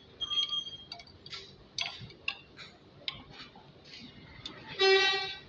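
Metal tools and engine parts clinking and tapping irregularly, with a brief ringing note near the start. About five seconds in comes the loudest sound, a short, steady pitched tone lasting about half a second.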